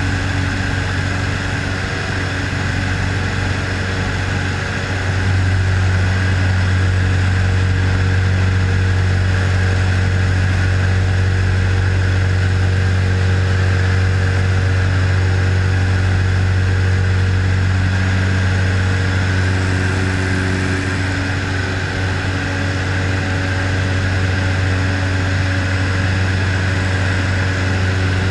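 Super Decathlon's four-cylinder Lycoming engine and propeller droning steadily in flight, heard inside the cockpit. It gets louder about five seconds in and eases slightly about twenty seconds in.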